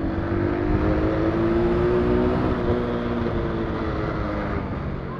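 Motorcycle engine of a Mondial 125 KT running under way, its pitch rising over the first couple of seconds as it accelerates to get past, then easing off and dropping toward the end.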